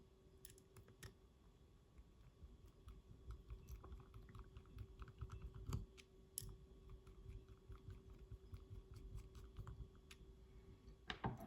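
Faint, scattered small clicks and taps of metal lock parts being handled as the tailpiece is fitted onto an Assa Twin 6000 lock cylinder.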